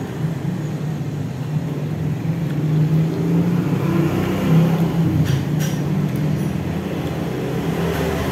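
Steady low engine rumble with a few light clicks about five to six seconds in.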